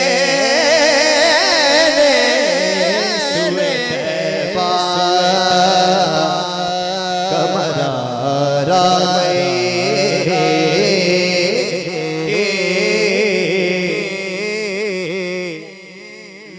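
Men's voices singing an Urdu naat (devotional poem) through a PA microphone in long, ornamented lines that waver up and down in pitch. The singing drops away briefly near the end.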